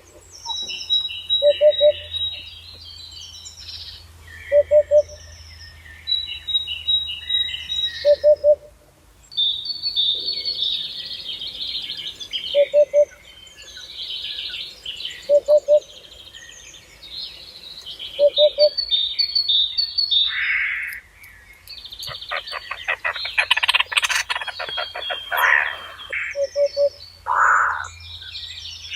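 Mixed birdsong, with several birds singing high chirps and trills, one dense rattling trill in the second half. Under them a low, short call repeats about every two to three seconds.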